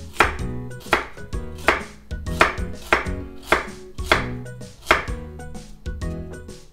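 Chef's knife slicing through a raw carrot and striking a wooden cutting board in a roll cut, a cut roughly every three-quarters of a second.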